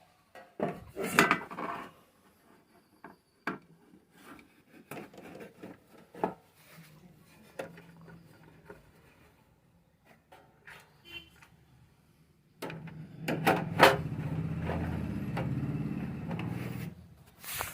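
Handling noise: scattered light knocks and rubbing, then a louder scraping rub lasting about five seconds near the end.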